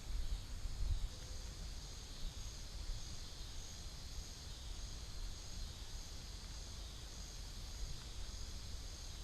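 Steady outdoor insect chorus, a high continuous trilling, over a low rumble.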